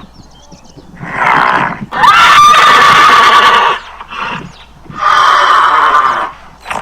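Horse neighing: four loud whinnies in a row, the longest lasting about two seconds.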